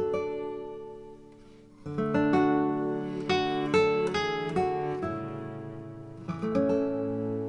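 Background music played on acoustic guitar: plucked notes ring and die away. The notes thin out to a short lull, then pick up again about two seconds in.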